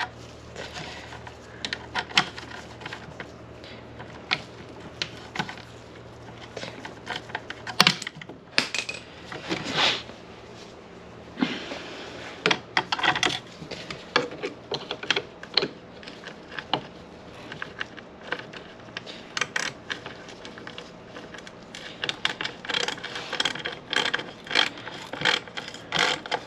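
Irregular small metallic clicks and clatter of hand tools and screws as the chainsaw's starter housing is screwed back on.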